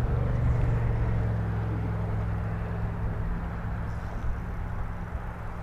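Motor vehicle engine hum, low and steady, slowly fading as the vehicle passes and moves away.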